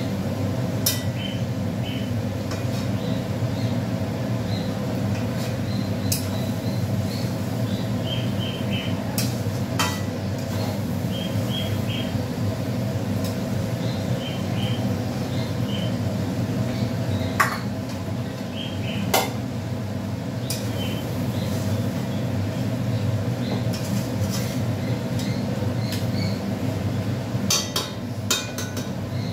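Onions cooking in an aluminium kadai on a gas stove, over a steady low rushing background, with occasional sharp clinks of metal against the pan. Near the end a metal ladle stirs the onions, clanking against the pan several times in quick succession.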